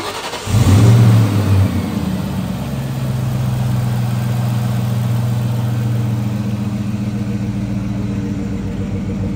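2003 Ford Mustang Cobra's supercharged 4.6-litre 32-valve V8 cold-starting. The starter cranks for about half a second, then the engine catches with a loud flare of revs and settles into a steady cold idle.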